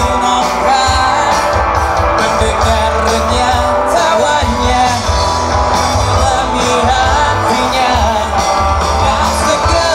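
A rock band playing live, with electric guitars, bass and drums and a male lead vocalist singing.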